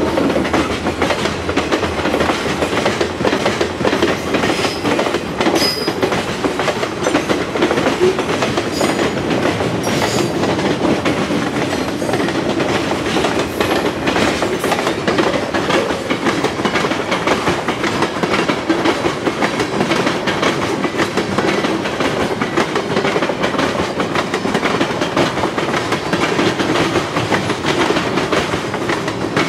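Freight train rolling past, its cars' wheels clicking over the rail joints in a steady, continuous rumble.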